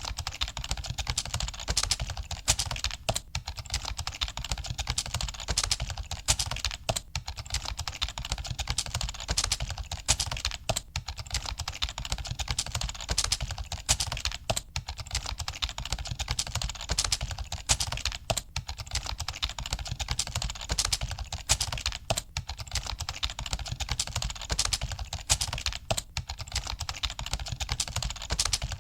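Computer keyboard typing: a rapid, continuous run of key clicks.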